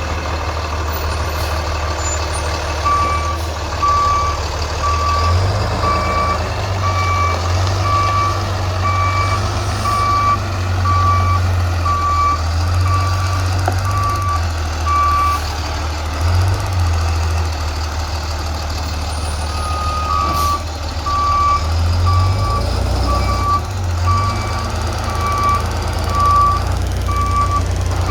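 A heavy vehicle's reversing alarm beeping at a steady pace, a bit faster than once a second, over a low engine rumble that rises and falls. The beeping stops for a few seconds past the middle, then starts again.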